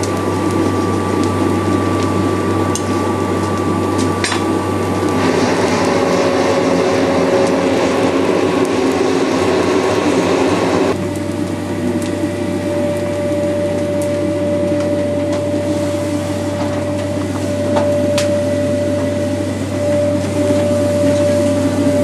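Forge blower running steadily, blowing air into the forge fire, with a thin steady whine. For several seconds in the middle the air blast runs louder, then drops back suddenly.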